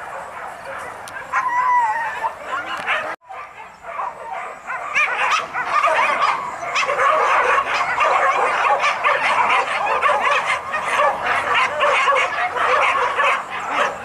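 A pack of hunting dogs yelping and barking over one another in a continuous chorus. It is lighter at first, cuts out briefly about three seconds in, then comes back denser and louder.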